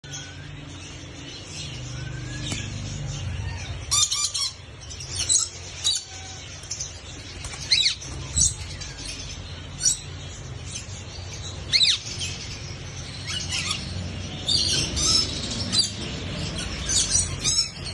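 Blue Indian ringneck parakeet giving about ten short, shrill calls at irregular intervals, some falling in pitch, over a steady low hum.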